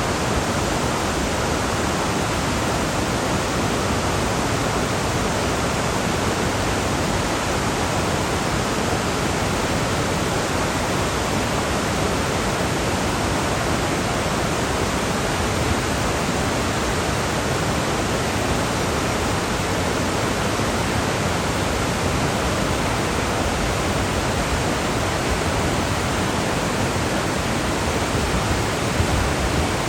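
A fast-flowing river rushing over rocks, a loud, steady roar of water.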